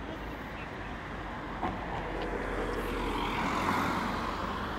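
A car driving past, its engine and tyre noise swelling to a peak and then fading. A single short click about a second and a half in.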